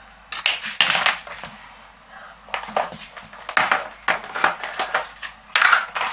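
Handling noise: small hard objects clicking and clattering in several short, irregular bursts.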